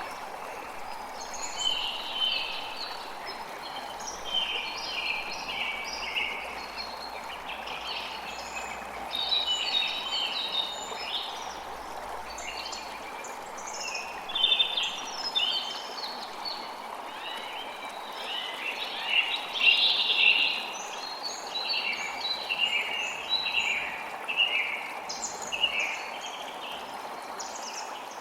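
Many small birds chirping and calling over a steady rush of running water. The calls come thick and fast, loudest about two-thirds of the way through.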